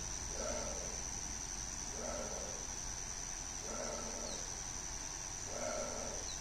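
An animal gives a short, low call about every two seconds, five times in all, over a steady high-pitched insect drone.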